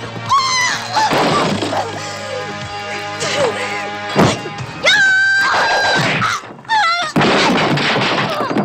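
Film fight-scene soundtrack: dramatic music with punch and crashing impact sound effects.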